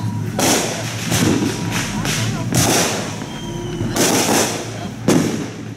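Aerial fireworks bursting overhead: about five sharp bangs, roughly a second or so apart, each trailing off in a short crackle. The loudest bang comes near the end.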